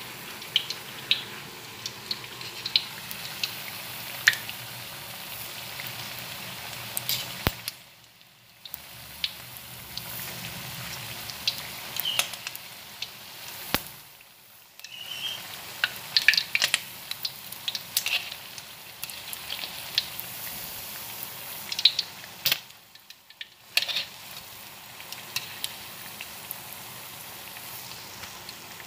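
Potato patties shallow-frying in hot oil in a wok: a steady sizzle with frequent sharp crackles and pops, cutting out briefly three times.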